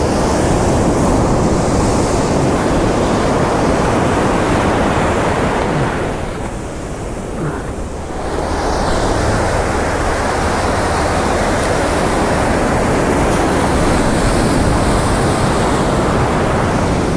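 Ocean surf washing and foaming around the feet, with wind rumbling on the microphone. The wash eases for a couple of seconds about six seconds in, then builds again.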